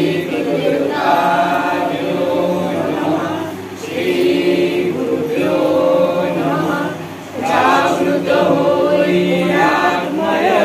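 Several voices singing a Marathi devotional bhupali in long sung phrases, broken by short pauses about four and seven seconds in.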